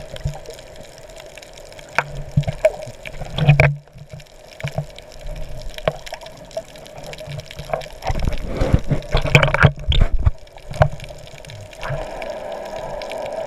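Water sloshing and bubbling close to the microphone, in irregular surges with scattered clicks, as when snorkeling.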